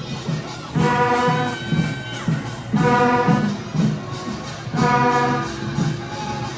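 Horns blaring a held note three times, each about a second long and about two seconds apart, over the steady beat of Korean pungmul drums.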